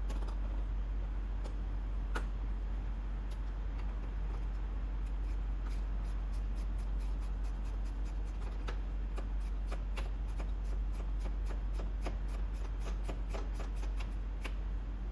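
Scattered light clicks and taps of hand work on car parts, sparse at first and then coming quickly in irregular runs through the second half, over a steady low hum.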